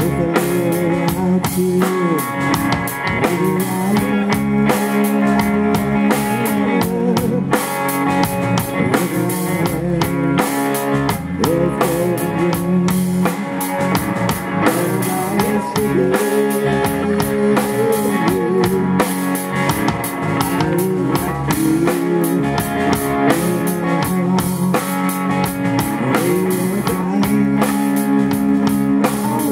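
A live rock band playing: electric guitar, bass guitar and drum kit, with steady drumming under sustained, bending guitar notes.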